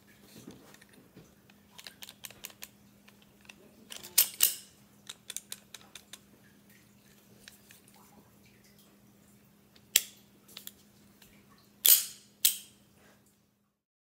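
Metal clicks and sharp snaps from a homemade URU submachine-gun dummy worked by hand, its action and new three-position selector switch being checked in each position. Irregular light clicks are broken by louder snaps: a close pair about four seconds in, one near ten seconds and two near twelve seconds.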